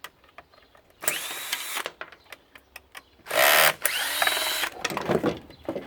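Cordless drill/driver run in two short bursts, its motor whine rising as it spins up, backing screws out of an electric weed trimmer's plastic housing; the second burst is longer. Small clicks and rattles of plastic parts being handled between the bursts.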